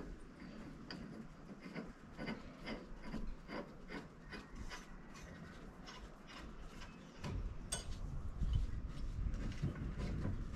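Scattered light clicks and scrapes of metal parts being handled and fitted at a car's tow hitch while mounting a bike rack. A low rumble joins about seven seconds in.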